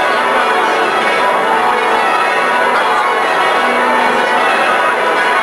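The bells of Magdalen College tower ringing changes, many bells sounding in an unbroken, overlapping peal.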